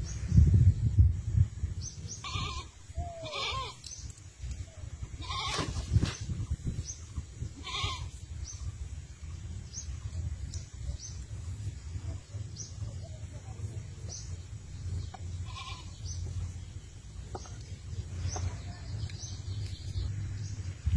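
Several short animal calls, clustered in the first eight seconds with one more near the middle, over a steady low rumble.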